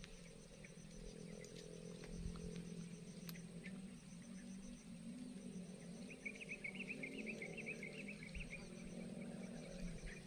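Faint chorus of insects such as crickets: a steady high whine and an evenly pulsing chirp, joined about six seconds in by a few seconds of busier chirping, over a low steady hum.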